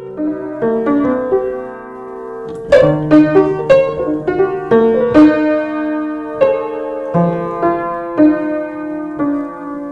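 Piano music: a melody with chords, notes struck one after another and left to ring, growing louder about three seconds in.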